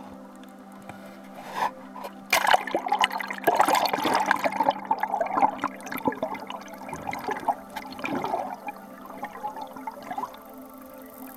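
Water splashing and gurgling as the camera plunges under the sea surface beside a kayak hull, then muffled underwater churning that dies away about ten seconds in.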